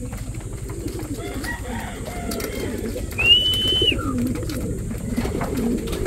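A flock of racing pigeons cooing over one another in a steady murmur. A little past three seconds in, a single short high whistle-like tone stands out above them.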